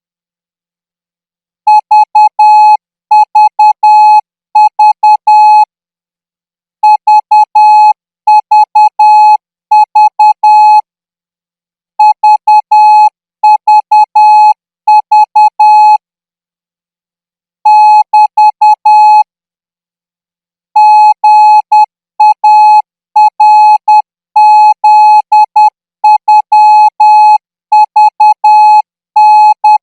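Thai Morse code practice signal: a single steady beep keyed on and off in dots and dashes at 14 words per minute. The characters come in groups, with longer pauses between the groups, and the signal begins about two seconds in.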